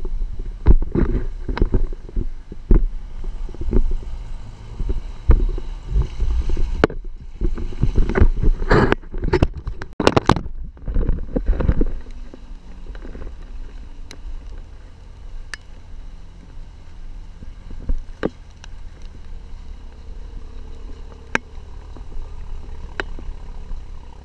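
4x4 driving slowly along a rough dirt track: a low engine and tyre rumble with many knocks and rattles from the body jolting over bumps. The knocking is dense for about the first half, then gives way to a steadier rumble with only a few clicks.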